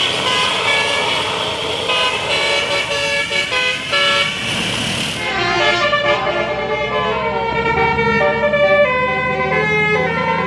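Telolet basuri bus horns playing a melody of quick stepped notes over road noise. About five seconds in, the hiss of the traffic drops away suddenly and the melody carries on cleaner.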